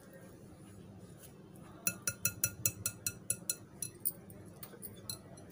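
Metal wire whisk clinking against a glass mixing bowl while stirring dry flour, a rapid run of sharp clinks, about four or five a second, starting about two seconds in and stopping near the end.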